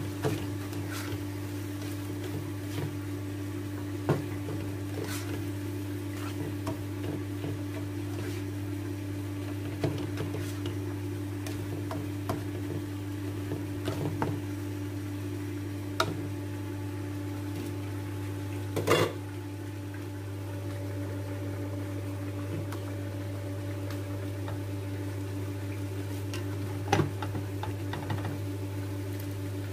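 A spatula knocking and scraping against a frying pan now and then while sliced pork is stirred, over a steady low hum. The loudest knock comes a little past the middle.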